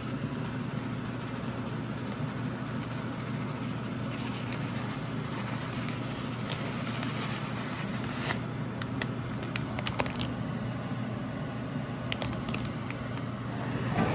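Cream sauce simmering in a skillet over a steady low hum, with a few light scrapes and clicks about eight and ten seconds in as shredded Parmesan is shaken in from a bag and stirred with a spoon.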